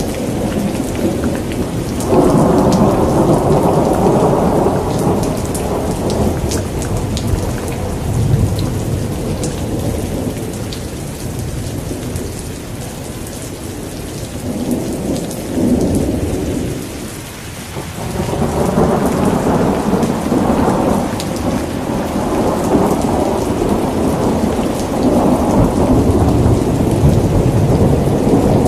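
Thunderstorm: steady rain with rolling thunder. A long low roll swells about two seconds in and slowly dies away through the middle, then a second roll builds at about eighteen seconds and keeps rumbling.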